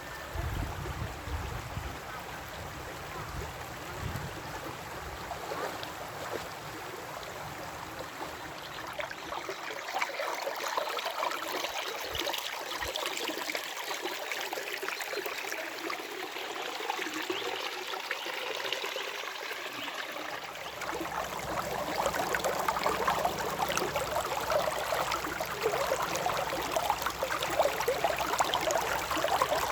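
Running water of a small stream, a steady trickling and splashing rush that grows a little louder about two-thirds of the way through.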